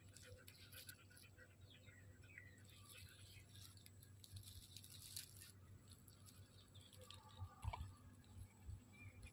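Near silence with faint crackling of dry leaves and handling noise as a puppy's paw is held and moved, and a couple of soft thumps about eight seconds in.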